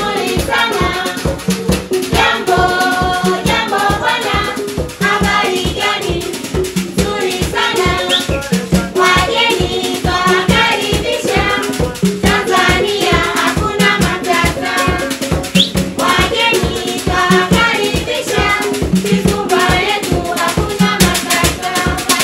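Live African drumming on hand drums keeping a fast, even beat, with a group singing a local song over it.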